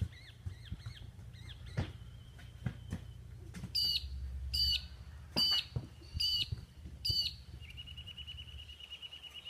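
Birds calling: a run of five sharp, high calls, roughly one a second, starting about four seconds in, then a fast high trill near the end. A couple of sharp thumps are heard earlier.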